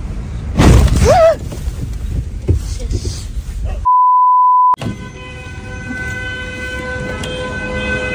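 A brief loud burst about half a second in, then a steady 1 kHz test-tone beep that lasts about a second and cuts off sharply, the standard tone that goes with TV colour bars. Right after it a car horn sounds, held steadily.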